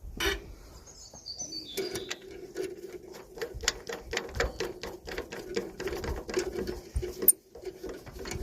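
A rapid, uneven run of small sharp clicks, about five a second, from about two seconds in until about seven seconds in.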